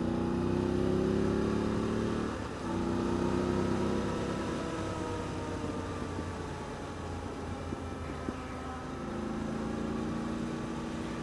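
Motorcycle engine and exhaust, heard from inside the rider's helmet, rising in revs as the bike accelerates. There is a brief break about two and a half seconds in as it shifts up a gear, then the revs rise again, ease to a steadier note, and climb once more near the end.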